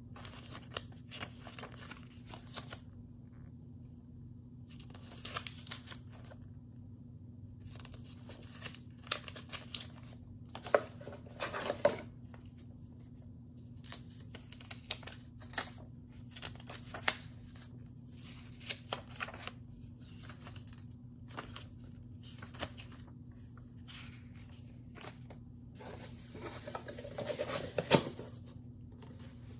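Paper booklets and paper packaging being handled and shuffled: scattered bursts of rustling with a few sharper clicks, busiest around ten seconds in and again near the end, over a faint steady low hum.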